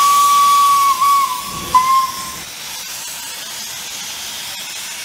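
Steam locomotive's whistle sounding a long blast, a short blip, then a third short toot about two seconds in, over a loud hiss of escaping steam. The steam keeps hissing steadily after the whistle stops.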